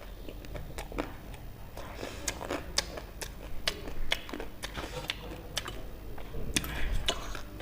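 A person chewing food close to the microphone: irregular sharp, wet mouth clicks and crunches, several a second.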